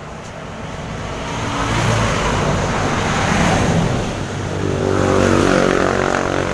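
Highway traffic: a motor vehicle passing close by, swelling to its loudest about two seconds in, then an engine's steady drone.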